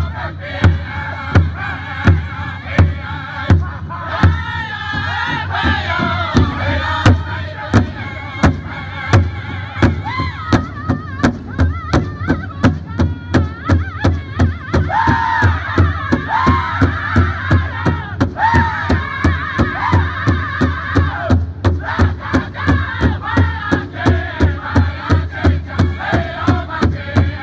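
Powwow drum group singing a jingle dress song: several men strike a large shared powwow drum in a steady beat while singing in high, wavering voices. The beat grows faster in the second half.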